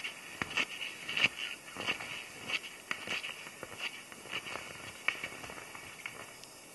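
Skis scraping and crunching over snow as a skier moves away: irregular light clicks and scrapes that grow fainter.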